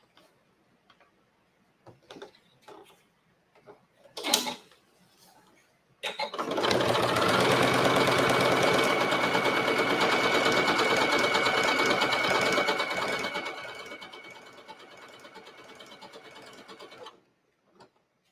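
Sewing machine stitching through overlapped leather scraps. It runs loud and steady with a light whine for about seven seconds, then more quietly for about three seconds before stopping. A few light clicks and one sharp tap come before it starts.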